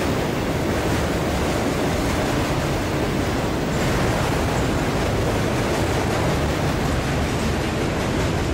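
Freight train of multilevel autorack cars rolling past: a steady, loud noise of steel wheels running on the rails.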